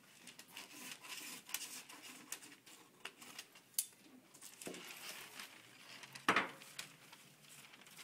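Sheets of pattern paper being handled on a table: rustling and light taps and clicks, with a sharp knock near four seconds in and a louder one about six seconds in.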